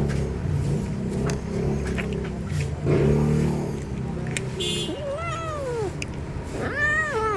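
A cat making low, growly murmuring noises while eating, with small clicks. It then gives two meows, about five seconds in and again near the end, each rising and then falling in pitch.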